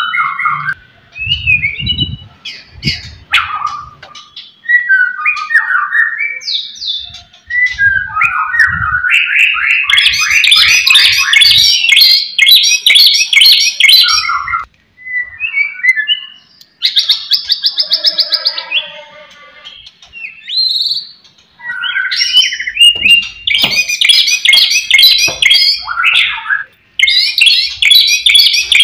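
Caged male white-rumped shama (murai batu) singing at full volume: a varied song of short whistled and chirping phrases broken by brief pauses, with long runs of fast, rapidly repeated rattling notes, the longest about ten seconds in and again near the end. A few dull low thumps sound in the first ten seconds.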